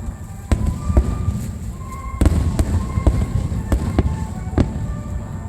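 Fireworks display: aerial shells bursting in an irregular string of sharp bangs, several a second at times, over a low continuous rumble. The strongest bang is a little over two seconds in.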